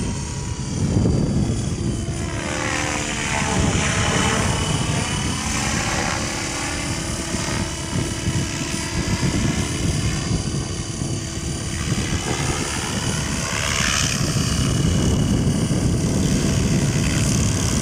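Outrage Fusion 50 radio-controlled model helicopter flying, its engine and rotor giving a steady drone. The tone sweeps as it moves, around three seconds in and again near the end. It gets a little louder in the last few seconds as it comes closer.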